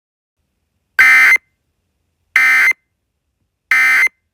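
Emergency Alert System end-of-message tones: three short bursts of SAME digital data, each under half a second, spaced a little over a second apart, signalling that the alert message is over.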